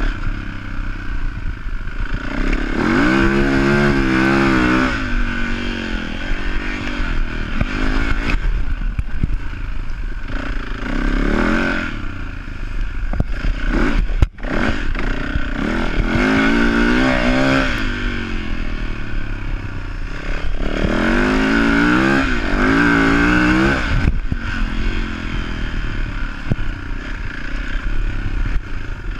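Yamaha dirt bike engine under load, its revs climbing and dropping back in several surges as the rider works the throttle across rough ground, over a steady low rumble.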